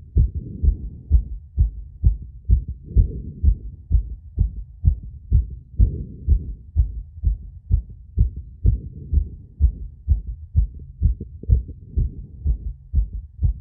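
Human heartbeat recorded as a phonocardiogram: a regular train of low, muffled thumps, about two to three a second.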